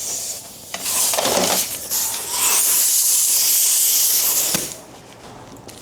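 Loud hissing in two bursts, a short one about a second in and a longer one lasting about two and a half seconds, from a pressurized spray or air jet.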